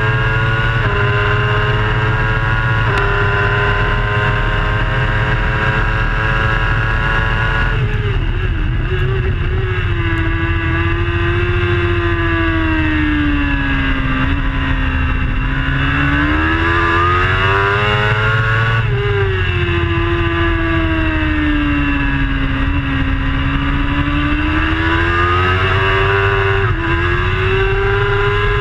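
Racing superbike engine heard from an onboard camera at speed: in the first seconds its pitch climbs in steps through the gears, then the revs fall and rise again twice as the bike slows into corners and drives out of them, over a constant low rush of wind.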